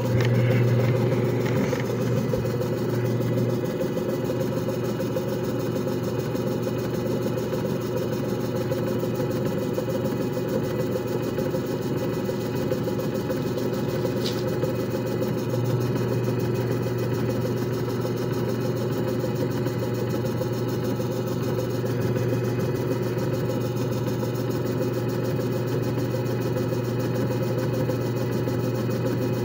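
JFJ Easy Pro disc repair machine running a repair cycle: a steady, even motor hum.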